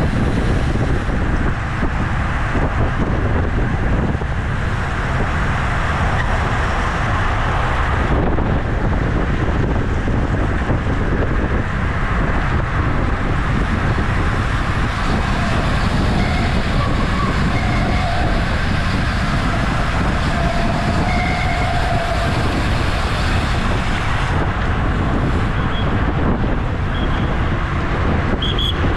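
Steady wind noise rushing over the microphone of a camera on a moving bicycle.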